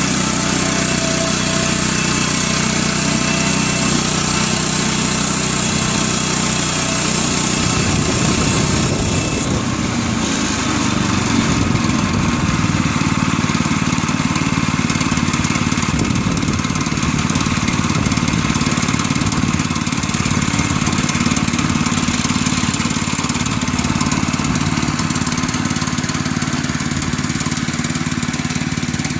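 Woodland Mills HM122 bandsaw mill's small gas engine running under load with a strong high hiss, which drops away about nine seconds in. The engine then runs on steadily at a lower, rougher pitch.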